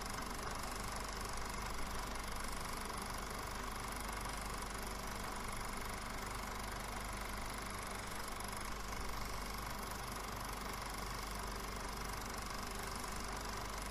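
Steady, unchanging hiss with a constant low hum and faint steady tones: the noise floor of a silent film's VHS transfer, with no sound of its own.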